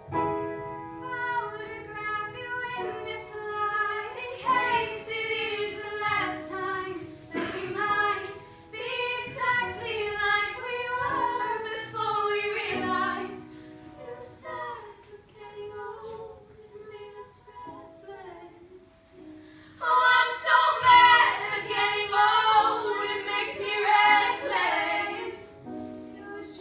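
Female voices singing a song together, quieter through the middle and swelling louder again about twenty seconds in.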